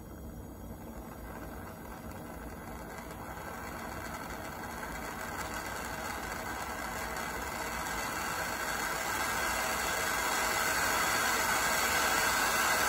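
Prestolite air-acetylene torch flame hissing steadily, growing louder throughout as the acetylene regulator is turned up and more gas pressure feeds the torch.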